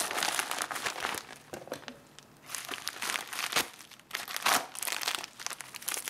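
Plastic padded mailer crinkling and rustling in the hands as it is slit open with a knife, in irregular bursts with a short lull about two seconds in.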